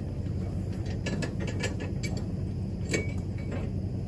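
Irregular metallic clicks and clanks from the steel trailer frame and winch hardware being handled and stepped on, over a steady low engine hum.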